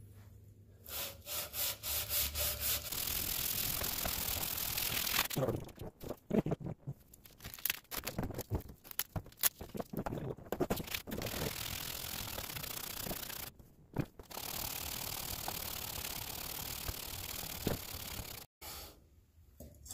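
Kawasaki FH721D cylinder head being lapped face-down by hand on a wet abrasive sheet laid over a flat marble slab: a gritty scraping rub with each back-and-forth stroke, in long spells with short pauses. The warped head face is being ground flat to take off a remaining burn mark.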